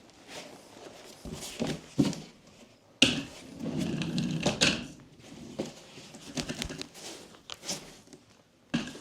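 Knocks and clunks of a plastic mortar tub on furniture rollers being handled and moved, with a scraping, rolling rumble for a couple of seconds near the middle.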